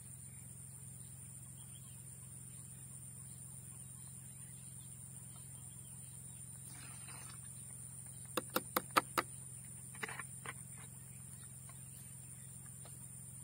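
Plastic insecticide bottle and its screw-on measuring cap being handled while a dose is measured out, giving a quick run of five sharp clicks about eight seconds in and a few fainter clicks a little later. Behind them is a steady low hum and a steady high tone.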